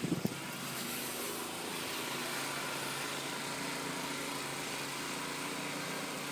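An engine running steadily with an even hum, over a faint hiss.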